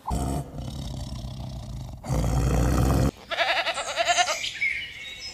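A low, noisy rumble for about three seconds, then a sheep bleating in a quavering call.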